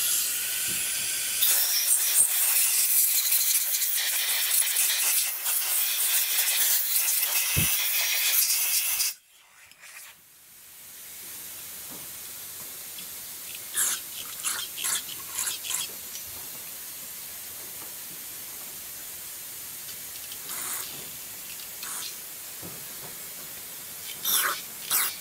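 Compressed-air blow gun hissing loudly for about nine seconds as it blows out carburetor passages, then cutting off sharply. After that an aerosol can of carburetor cleaner sprays through its straw with a quieter steady hiss, with several short, louder spurts near the end.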